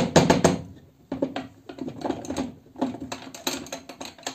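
Irregular metal clicks and knocks as the two crankcase halves of a 139QMB scooter engine are rocked and pressed together over the studs, feeling for the gearbox shafts to seat.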